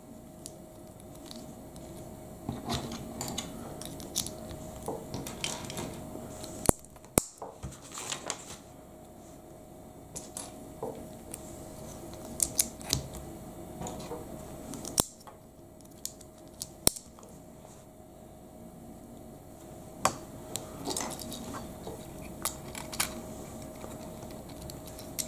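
Plastic LEGO bricks clicking as they are pressed and snapped together, with loose pieces being handled and clattering on a wooden table; sharp clicks come irregularly, a few much louder than the rest.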